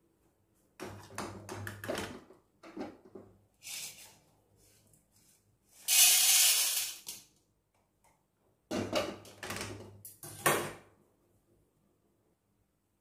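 An aluminium kadai clatters and knocks as it is handled on the stove. About six seconds in comes a louder rush as the roasted dal, dried red chillies and curry leaves are tipped and scraped out onto a steel plate. A few more metal clanks follow as the empty pan is set back down on the gas stove.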